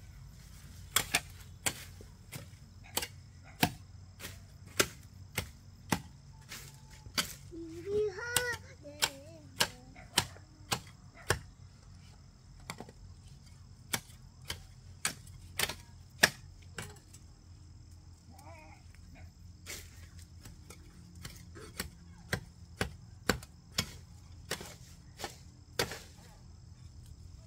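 Repeated sharp knocks, irregular at roughly one a second with a couple of pauses, over a steady low hum. A short, high, wavering voice-like call comes about eight seconds in.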